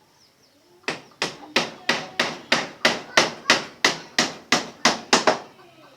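Hammer blows in a quick even run, about fifteen strikes at roughly three a second, each with a short ring; they begin about a second in and stop near the end.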